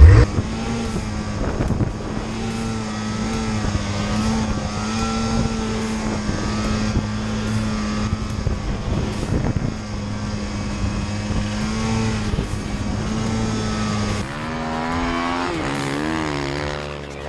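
Snowmobile engine running at a steady pitch while the sled is ridden through deep powder snow. About fourteen seconds in, the engine note drops, then rises and falls as the throttle is worked.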